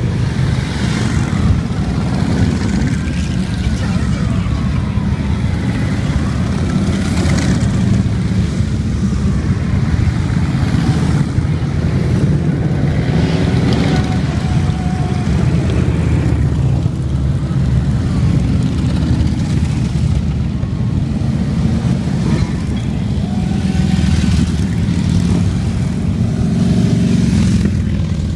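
A steady procession of heavy cruiser and touring motorcycles passing one after another, their engines forming a loud, unbroken low drone, with individual bikes' engine notes swelling and fading as they go by.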